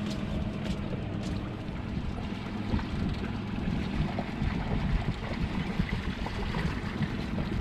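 A fishing boat's motor running steadily, a low even hum, with water noise around the hull.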